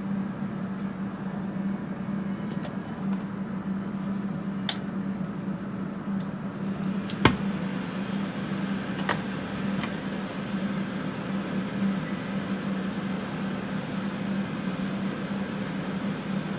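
Steady hum and rushing of workbench fume-extraction fans together with a jeweller's soldering torch heating a silver pendant and its solder flux. A few small clicks, and one sharp click about seven seconds in.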